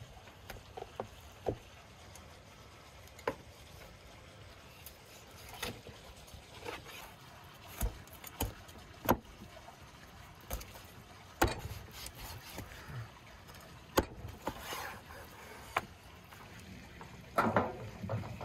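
Meat cleaver chopping through lamb ribs onto a wooden cutting board: single sharp chops at irregular intervals, a second or more apart, with a short clatter near the end.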